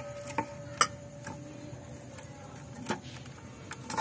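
A hand stirring gram-flour batter in a stainless steel bowl, working the besan and buttermilk into a smooth paste. Fingers knock against the steel in irregular sharp clicks, about six of them, and the bowl rings faintly under them.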